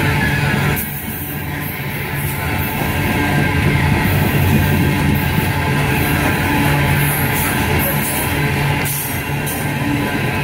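Rock music with guitar playing over the noise of a loaded coal train's hopper cars rolling past.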